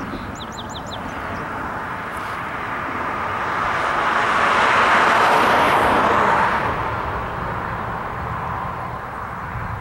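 A car passing on the road, its tyre and engine noise swelling as it approaches, loudest about halfway through, then fading away.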